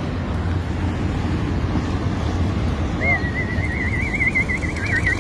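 A steady low rumble, then about three seconds in a long warbling whistle starts, wavering quickly and slowly rising in pitch.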